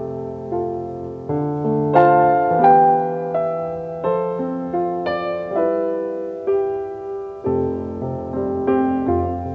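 Slow background piano music: notes and chords struck one after another, about one or two a second, each left to ring and fade.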